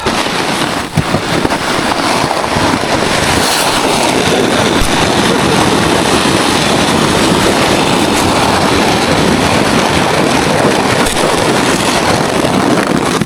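Makeshift sled sliding over hard-packed, icy snow: a loud, steady rushing scrape.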